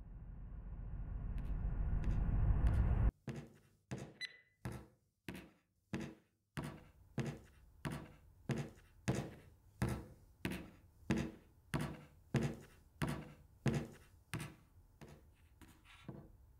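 A low rumbling swell builds for about three seconds and cuts off suddenly. It is followed by hard high heels striking a wooden floor in slow, even steps, about one and a half a second, each with a short hollow ring.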